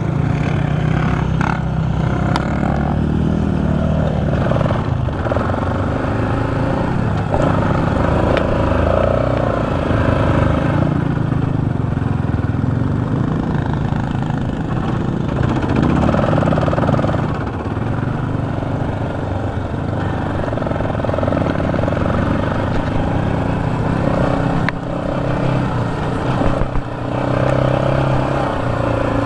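Sport quad (ATV) engine running under way, heard from the rider's seat, with the engine note rising and easing off as the throttle is worked.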